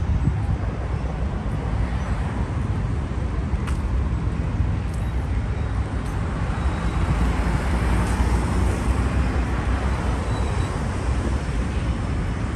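Steady road traffic on a wide multi-lane city avenue, engines and tyres running, with a vehicle passing a little louder about eight seconds in.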